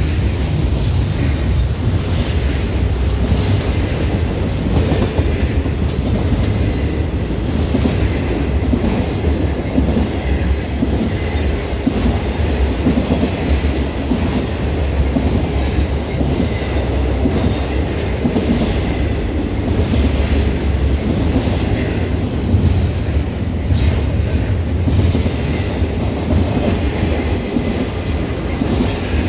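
Train rolling past at close range: a steady, loud rumble with the wheels clacking over the rail joints.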